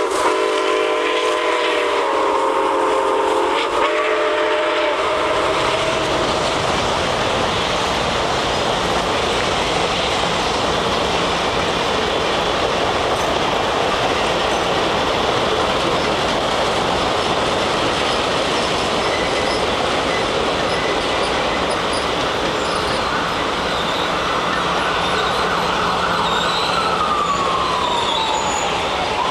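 A passenger train rolls past, its cars making a steady loud rumble and clatter over the rails. For about the first five seconds the train sounds a chord of several notes on its horn or whistle. Near the end a faint wailing tone falls and then rises.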